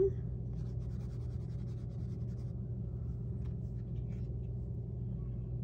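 A soft pastel stick scratching across pastel paper in quick back-and-forth strokes for about two seconds as a colour swatch is laid down, then a few light clicks, over a steady low hum.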